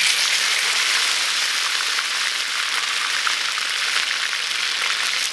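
Chunks of marinated pork belly sizzling in hot oil in a wok. The sizzle starts suddenly as the first piece goes in and carries on as a steady hiss with small crackles.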